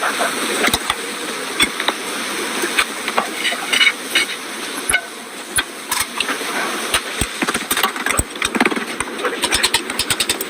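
Irregular sharp clicks and knocks of hand-tool work on a car's rear brake, coming faster near the end, over a steady hiss.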